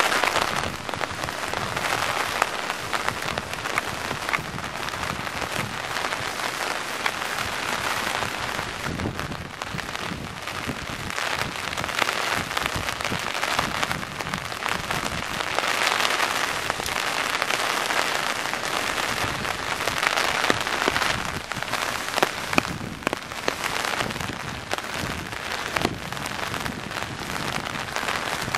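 Steady rain, with drops pattering close by on an umbrella overhead and sharp single drop hits scattered throughout. The downpour swells and eases in waves.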